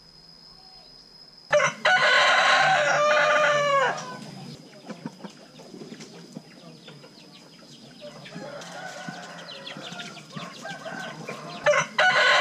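Rooster crowing twice: a loud crow about a second and a half in, lasting about two seconds and ending on a falling note, and a second crow starting near the end. Between the crows there are quieter scattered clicks and faint calls.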